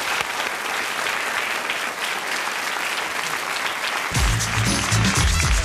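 Audience applauding, then about four seconds in music with a heavy bass line and a beat starts suddenly and runs on.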